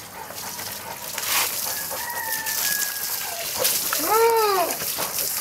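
Rooster crowing, with a loud arching call about four seconds in, over the steady hiss of water running from a garden tap.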